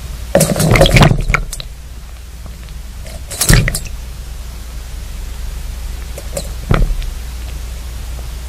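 Recording made 17 m underground: a steady low hum with a few irregular dull thuds, a cluster of them in the first second and single ones about three and a half and seven seconds in. The caption takes them for blasting and rock-drill work.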